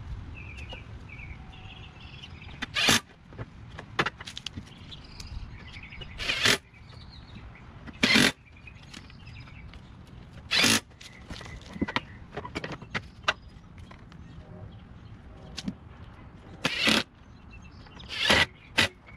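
Cordless drill driving bolts on a push mower's engine during reassembly after a flywheel and flywheel-key replacement. It runs in short bursts, about eight of them, one to several seconds apart.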